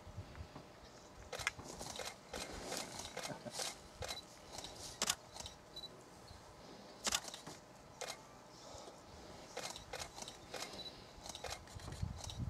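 Scattered sharp clicks and small rattles at irregular intervals, several a second at times, with a faint low rumble near the end.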